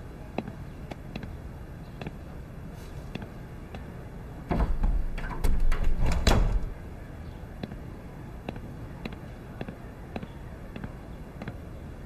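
Tall wooden lattice doors being pushed open, rattling and knocking for about two seconds a few seconds in. Soft footsteps on a wooden floor come before and after.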